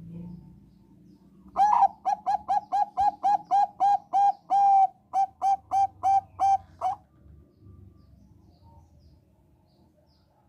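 Thai-bred zebra dove (perkutut bangkok) singing: a run of about seventeen short, clear coos, close to three a second, with one note held a little longer midway. The song starts about one and a half seconds in and stops about seven seconds in.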